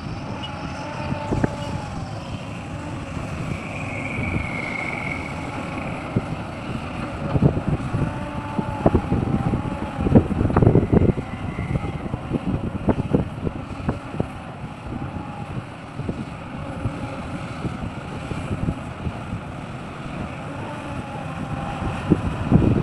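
Heavy diesel mining machinery running steadily, with wind on the microphone and a cluster of sharp knocks about 8 to 11 seconds in.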